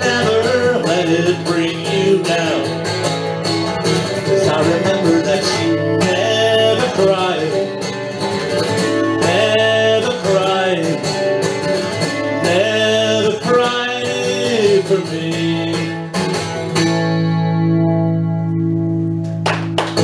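Solo acoustic guitar and voice playing the closing bars of a song; for the last few seconds a final guitar chord rings out and fades.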